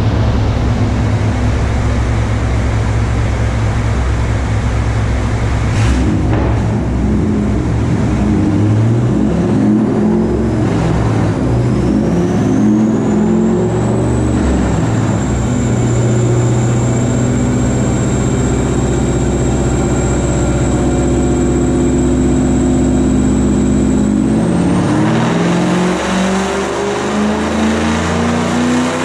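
Chevrolet Camaro SS 6.2-litre V8 with long-tube headers and a performance exhaust, running loud. It holds a steady low rumble, climbs in revs about six seconds in, holds a steady pitch with a faint high whine, drops off near the end and begins climbing again.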